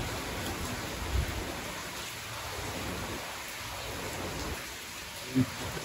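Steady rain falling, with one light knock about five seconds in.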